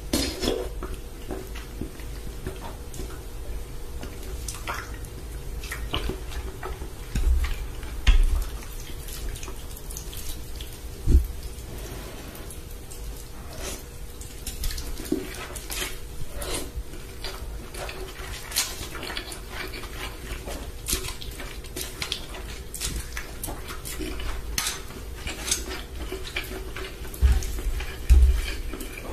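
Close-up eating sounds: noodle soup slurped and chewed, with many small clicks of chopsticks and a spoon against a glass dish, and a few low thumps.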